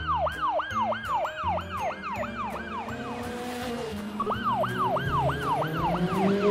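Police-style siren in a fast yelp, its pitch sweeping up and down about four times a second; it breaks off about three seconds in and starts again about a second later.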